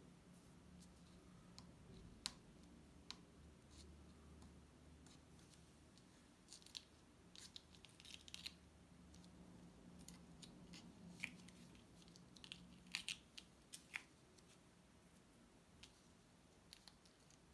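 Faint, scattered crackles and clicks of the paper backing of a sand-painting board being picked at and peeled off with a pointed tool, over a low steady hum.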